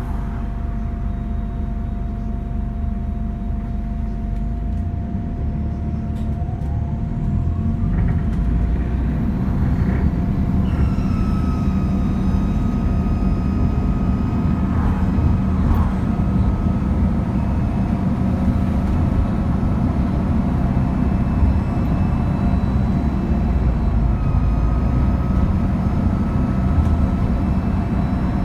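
Bus diesel engine pulling away and gaining speed, with a high turbocharger whine that rises in pitch and then holds as several steady whistling tones over the engine, dipping briefly near the end.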